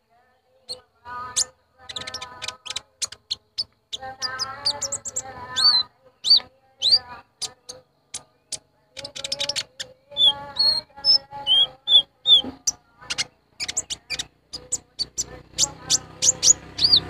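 Kolibri ninja (konin) sunbird song played as a lure call: a rapid string of sharp high chirps mixed with buzzy notes and short up-slurred whistles, broken by brief pauses.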